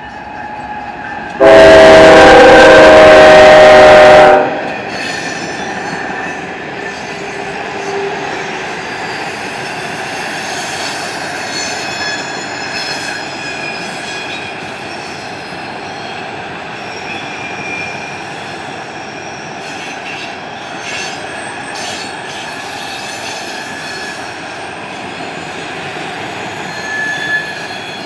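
A Nathan K5HL five-chime air horn on a GE ES44DC locomotive sounds one loud blast of about three seconds, starting a second or so in. The rail-loaded flatcars then roll past in a steady rumble, with short high wheel squeals now and then.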